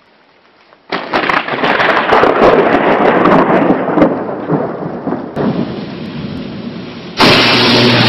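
Thunderstorm: thunder rumbling with heavy rain, starting suddenly about a second in, with a sharp crack about four seconds in. It eases after about five seconds, then a louder burst of storm noise cuts in near the end.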